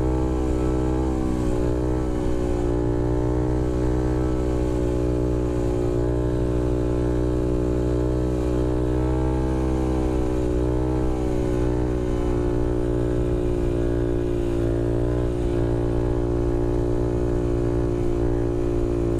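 Honda Grom's 125 cc air-cooled single-cylinder four-stroke engine running under way at fairly steady revs, heard from on board, its pitch drifting slightly up and down.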